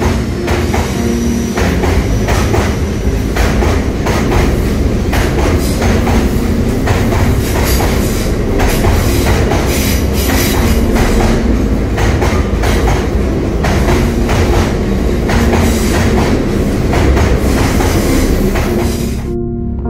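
Freight train wagons rolling past a station platform: a steady loud rumble with repeated clickety-clack of the wheels over the rail joints. The sound cuts off suddenly near the end.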